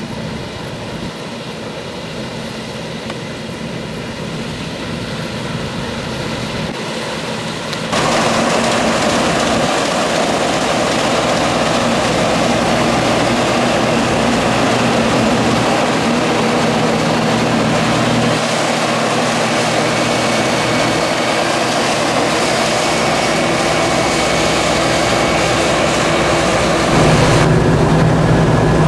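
Combine harvesters running while harvesting rapeseed: a steady engine and threshing drone that gets much louder about eight seconds in, as a Fendt combine passes close by. Near the end it changes to a heavier, lower hum heard from inside a combine's cab over the turning reel.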